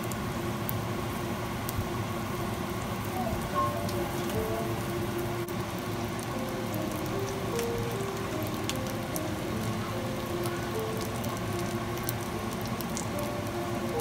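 Steady sizzle of oil under chive pancakes frying in a pan, with a soft, slow melody of background music.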